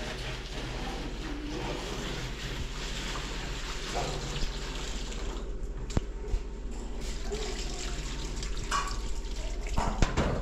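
Running water pouring and splashing steadily, easing briefly about five and a half seconds in.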